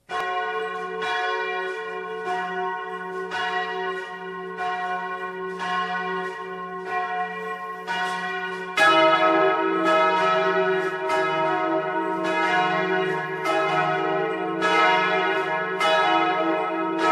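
Church bells ringing in a steady run of strikes, each tone hanging on. About nine seconds in the ringing grows louder, with more bells sounding together.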